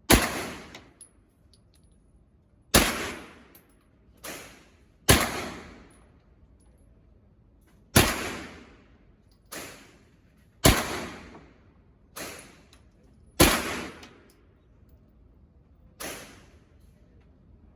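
Gunshots fired one at a time, about ten in all: six loud shots spaced roughly two to three seconds apart, with four quieter shots in between, each ringing out with a short echo.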